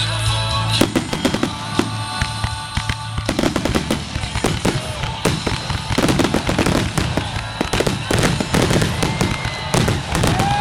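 Fireworks grand finale: a rapid barrage of bangs and crackles, several a second, growing denser after about three seconds.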